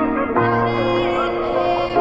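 Background music: sustained chords under a wavering melody line, shifting to a new chord with a low bass note about half a second in.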